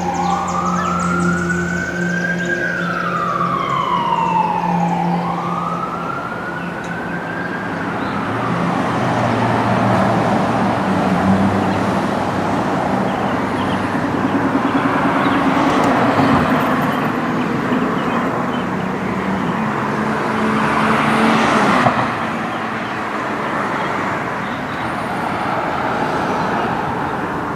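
A wailing siren sweeps slowly up and down in pitch twice, then dies away after about six seconds. A broad rushing roar follows, swelling twice before easing off.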